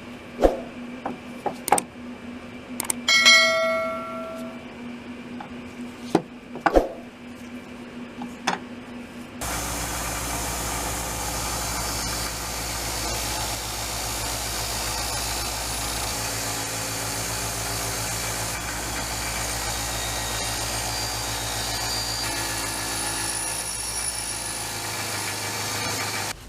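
Scattered knocks of hand tools on metal, with one ringing metallic strike about three seconds in. A power tool then runs steadily for about seventeen seconds, starting and stopping abruptly.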